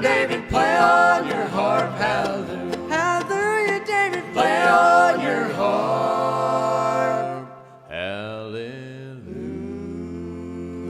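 Bluegrass band singing the closing chorus line of a gospel song to guitar and strings, the voices holding a final note until about seven seconds in. After a short break, soft music of steady held chords starts up.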